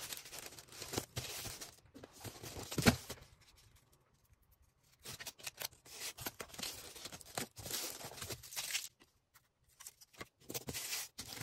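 Hands packing an order: plastic packaging rustling and tearing in irregular bursts, with one sharp knock about three seconds in, a lull of a second or so, then more rustling.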